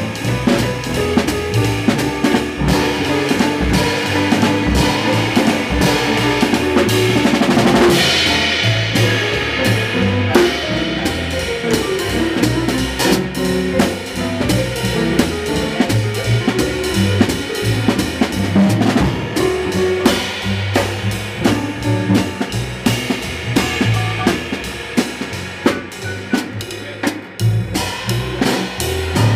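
Live small-band jazz heard close to the drum kit: drums played with sticks on snare, bass drum and ride cymbal, with a double bass walking underneath. A cymbal crash stands out about eight seconds in.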